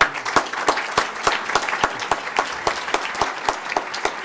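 An audience applauding. Many hands clap together, breaking out all at once and keeping up an even, dense clapping.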